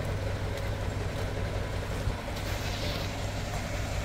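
Dump truck's engine running steadily with a low rumble while the truck stands with its tipper bed raised; a faint higher hiss joins briefly about two and a half seconds in.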